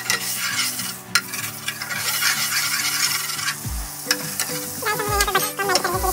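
Spices sizzling in hot oil in a frying pan while a spatula stirs and scrapes against the pan, with sharp clicks of the spatula on the metal.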